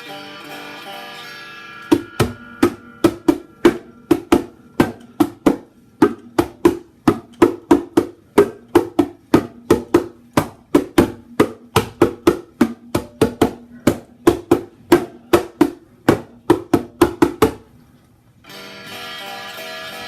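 Bongo drums played in a quick run of sharp strikes, about three a second, starting about two seconds in and stopping near the end, over a quiet sustained musical backing.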